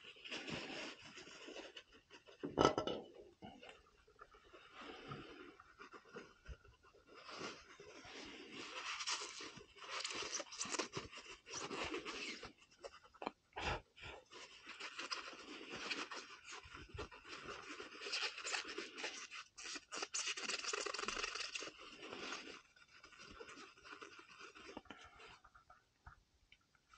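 A rag rubbing and wiping metal burner parts in short, irregular scrubbing strokes, with two sharp knocks of a metal part being handled, one about three seconds in and one about halfway through.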